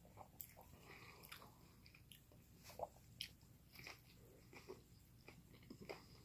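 Faint close-up chewing of a cheeseburger: scattered small mouth clicks and smacks, a couple of louder ones near the middle.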